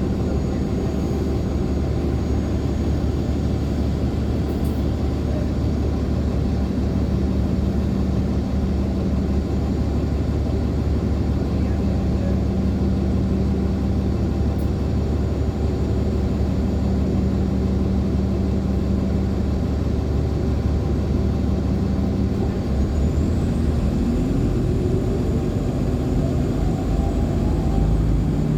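A 2014 NOVA LFSA HEV articulated hybrid bus with a Cummins ISL9 diesel, heard from inside the cabin while it runs along with steady engine drone and road noise. From about 22 seconds in, a whine rises in pitch.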